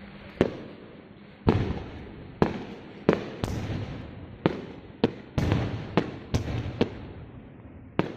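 Fireworks show bursting: about a dozen sharp bangs at uneven intervals, each trailing off into a rumbling haze, some coming in quick pairs.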